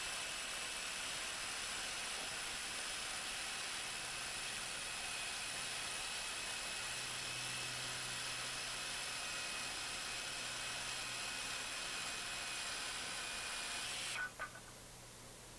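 Steady faint hiss with a thin high whine through it, cutting off abruptly near the end, followed by a couple of faint clicks.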